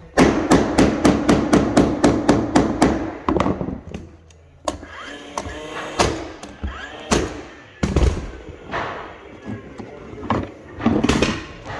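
Hammer striking hardwood floorboards: a fast run of about fifteen blows over the first three seconds, then a few single knocks spaced a second or more apart.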